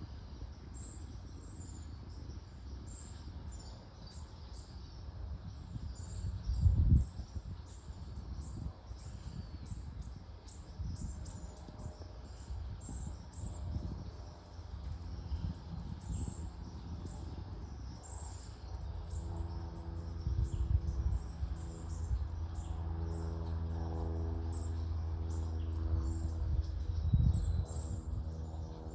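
Outdoor ambience: short, high-pitched chirps repeat every second or so throughout, over low gusts of wind buffeting the microphone, strongest about seven seconds in and near the end. From about two-thirds of the way through, a steady low engine hum joins in.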